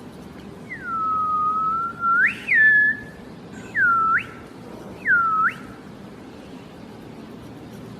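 Whistling in clear, pure notes: one long note that sags slightly and then climbs, followed by a few short whistles that dip and then swoop sharply upward.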